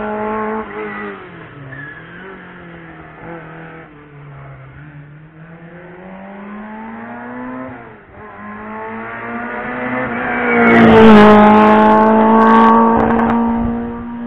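Hillclimb race car's engine under hard acceleration, the revs climbing and dropping several times as it works up the road. It grows louder as the car approaches, is loudest as it passes close by about eleven seconds in, then eases off.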